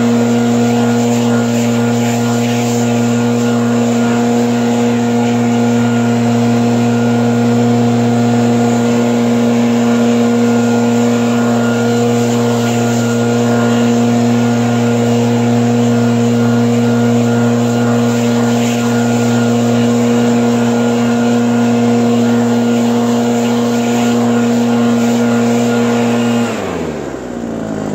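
Husqvarna 580BTS backpack blower's two-stroke engine running steadily at full throttle while blasting snow. Near the end it is throttled down and the pitch falls sharply.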